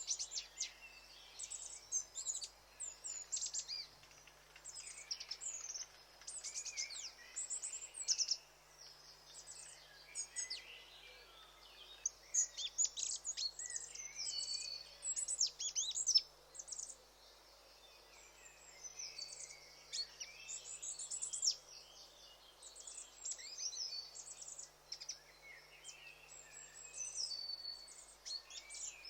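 Goldcrest singing and calling: very high, thin notes and quick sweeps in rapid clusters, with short pauses between bursts.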